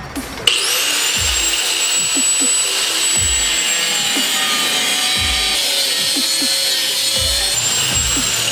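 Angle grinder with a cutoff disc starting up about half a second in, its whine rising as the disc spins up, then cutting a steel bar with a steady high whine and grinding hiss. Near the end the whine rises briefly as the disc comes free of the cut and then starts to fall.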